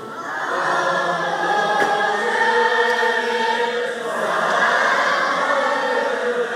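A large crowd of Tibetan monks singing together in unison, many voices holding long notes of a slow melody.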